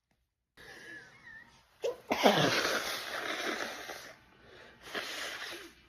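A woman sneezing in an allergic sneezing fit: a faint breathy intake, then a loud sudden sneeze about two seconds in, its voice dropping in pitch, trailing into a hissing blow-out for about two seconds, and a shorter breathy burst near the end.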